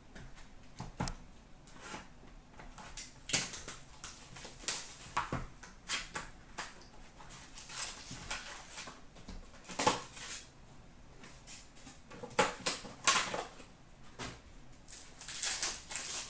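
Handling noise from opening a sealed cardboard box of hockey trading cards, with irregular crackling and rustling of cardboard and pack wrappers. Near the end a longer crinkling rustle as a card pack is torn open.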